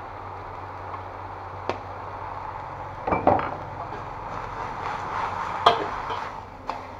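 Metal spatula scraping and knocking against a wok while water spinach is stir-fried, over a steady frying sizzle. A few sharp knocks, with a cluster about three seconds in and the loudest a little before the end.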